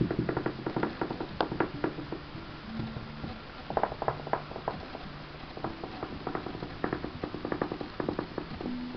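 Irregular clusters of light clicks and scratches from kittens moving about on a blanket and crinkly wrapping paper, busiest about four seconds in and again near the end. Faint music with held low notes plays underneath.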